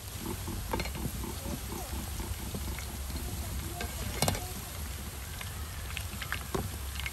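Cooking sounds: scattered light clicks and scrapes of a utensil being worked in a pot, over a faint sizzle and a low steady hum.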